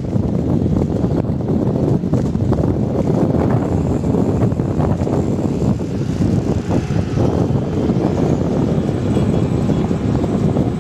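Motorcycle on the move: steady wind buffeting on the microphone over the drone of the engine and tyres.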